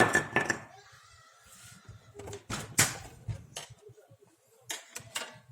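Plastic clicks and knocks from a Canon LBP-2900 laser printer being taken apart by hand, in three short bunches.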